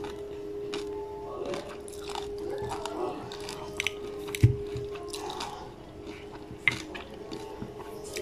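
Eating rice by hand: fingers squeezing and mixing rice against a plate, with scattered crackling chewing and biting sounds. A single dull knock comes about halfway through, and a steady hum runs underneath.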